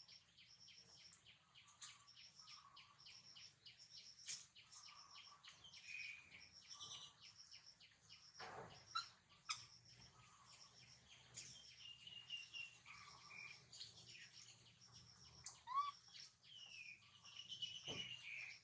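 Faint outdoor ambience of small birds: a rapid, evenly repeated high chirp through roughly the first half, with scattered short whistled calls throughout.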